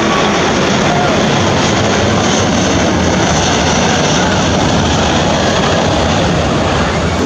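Loud, steady jet engine noise from a four-engined Airbus A380 close by.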